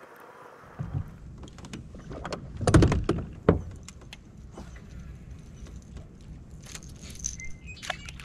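Knocks and clicks of gear being handled on the deck of a fishing boat, loudest about three seconds in, over a low steady rumble.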